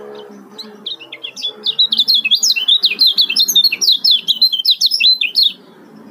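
Caged male kecial kuning (Lombok white-eye) singing a fast, tightly packed 'ciak ciak' chatter of high chirps. It starts about half a second in and breaks off suddenly near the end.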